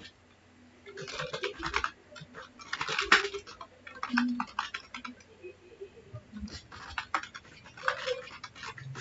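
Computer keyboard typing in several short bursts of keystrokes with pauses between them.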